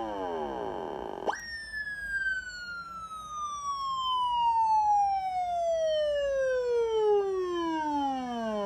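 Electronic police siren wailing. One falling sweep ends as the sound begins. About a second in, the tone jumps sharply up in pitch, then slides slowly down over some seven seconds.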